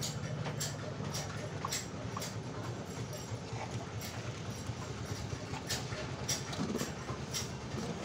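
Irregular light metallic clicks and taps as a greased bicycle bottom-bracket axle and its caged ball bearing are handled and fitted into the frame, over a low hum that fades in the first second or two.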